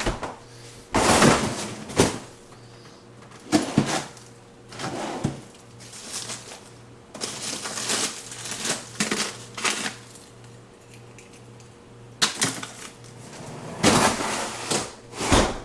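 Irregular knocks, clatters and rustling from a freezer drawer and what is in it being handled, with a steady low hum underneath.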